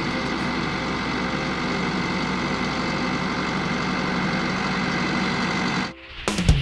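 Tractor engine running steadily while pulling a boom field sprayer. It cuts off suddenly near the end, and a few sharp hits of a title sting follow.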